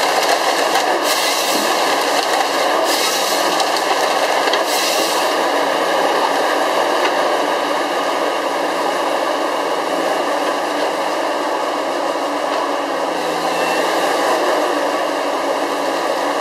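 Gremo 1050H forestry harvester running steadily under load, engine and hydraulics together with a steady whine. There are three short, harsh bursts of noise in the first five seconds while the harvester head works a log.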